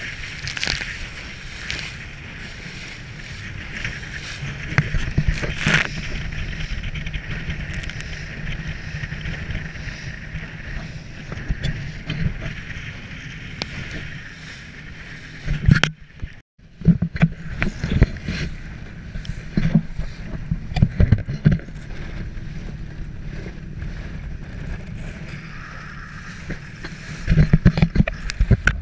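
Small riveted aluminium boat under way through choppy water: a steady rush of water and wind, with the hull knocking and slapping irregularly against the waves. A short gap about halfway through and a flurry of hard slaps near the end.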